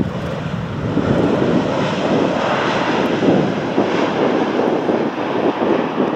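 Boeing 777-300ER's GE90 jet engines rushing steadily as the airliner rolls out along the runway just after touchdown, the noise swelling about a second in.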